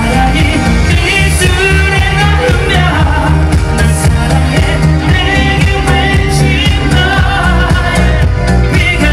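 A man singing a pop song live into a microphone over amplified backing music with a heavy bass line.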